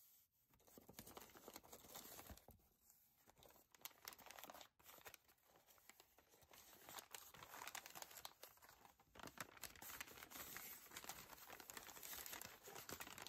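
Faint crinkling and tearing of brown kraft packing paper being unwrapped by hand, sparse at first and busier from about halfway.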